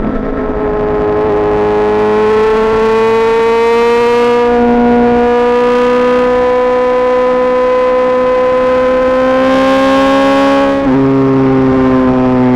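Yamaha XJ6 S's inline-four engine through an SC-Project exhaust, pulling steadily under way with its pitch slowly rising. Near the end it dips briefly and settles at a slightly lower pitch, as in an upshift.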